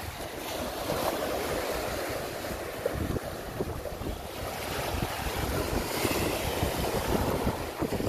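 Rough surf breaking and washing on a sandy beach, with wind buffeting the microphone in gusts.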